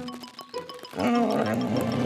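Cartoon background music with a light ticking beat. About halfway through, a loud, rough, wavering vocal-like cartoon sound effect joins the music for about a second.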